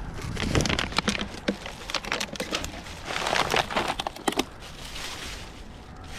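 Roadside litter being handled and picked up: plastic bottles and aluminium cans crinkling, rustling and clicking in irregular bursts, busiest about halfway through.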